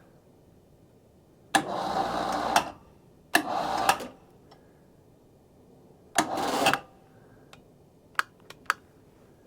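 Sawmill log-turner winch run in three short bursts of about a second each, pulling its line tight around a log, followed by a few sharp clicks near the end.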